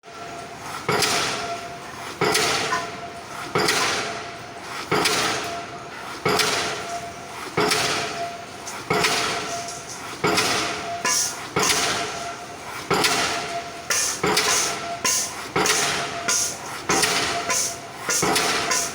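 Hydraulic pile-driving hammer striking the top of a precast concrete pile, one heavy ringing blow about every 1.3 seconds, the blows coming faster in the last few seconds, over the steady hum of the rig's engine.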